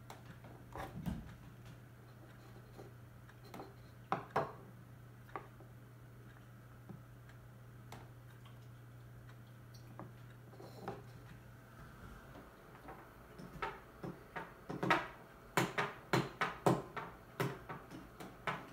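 Small knocks and clicks of a plastic doll and props being handled on a tabletop, sparse at first, then a quick run of taps near the end. A low steady hum underneath stops about two-thirds of the way through.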